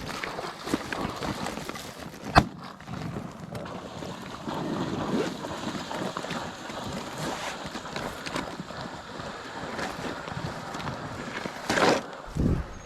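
Wind buffeting the microphone, with rustling movement and water noise. A single sharp bang about two and a half seconds in is the loudest sound.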